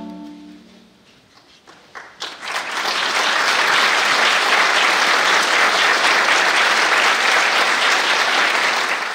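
A clarinet choir's final held chord dies away, and after a short pause a few claps start and the audience breaks into steady applause, which cuts off abruptly.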